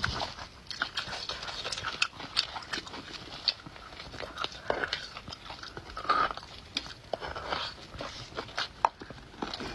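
Close-miked eating sounds of a person sucking and chewing beef bone marrow out of the bone: irregular wet smacks, sucks and sharp mouth clicks.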